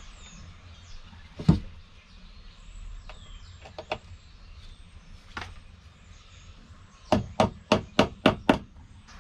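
Sharp knocks on a wooden shelf unit being fitted into place overhead: one loud knock about a second and a half in, a few light clicks, then a quick run of about six knocks near the end.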